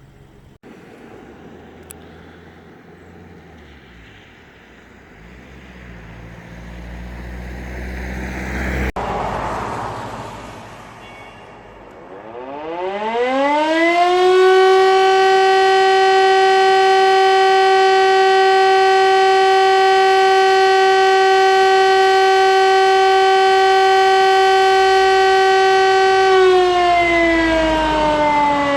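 A passing vehicle swells and fades, then about halfway through a siren, taken by the recordist to be an Auer LS 10, winds up in pitch over about two seconds. It holds one steady loud tone for about twelve seconds and begins winding down, falling in pitch, near the end. This is a siren test sounding.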